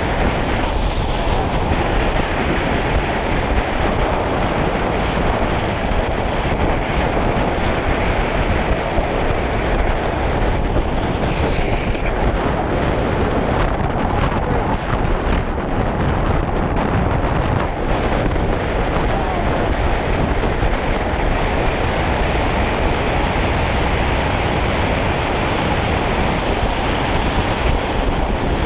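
Steady, loud rush of wind buffeting the microphone, as on a camera moving at speed.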